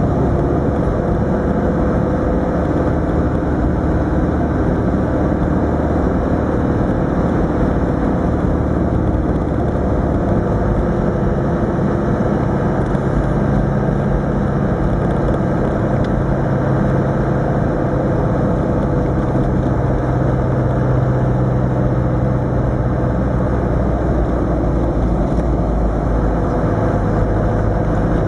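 Land Rover Defender 110's 300Tdi 2.5-litre four-cylinder turbodiesel engine running steadily under way, heard from inside the cab, its pitch shifting a few times as the speed changes.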